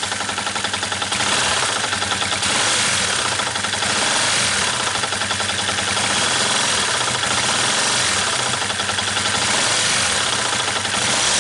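Yamaha New Vixion's single-cylinder four-stroke engine running with a steady, fast knock ('oblak'). The knock comes from the piston, damaged by running low on oil, and sounds much like a worn crankshaft knock.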